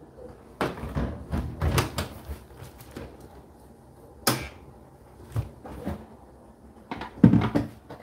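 Knocks and clunks from the Indesit condenser tumble dryer's door and casing being handled and shut. There are several knocks in the first couple of seconds, a sharp knock around the middle, and the loudest, deepest thump near the end.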